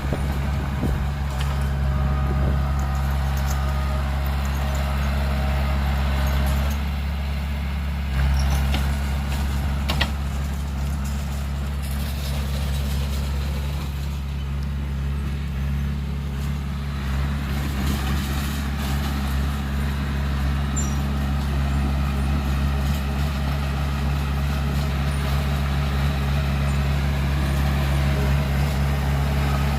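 Heavy diesel engine of earthmoving equipment running steadily, a constant low drone that shifts briefly about seven to eight seconds in.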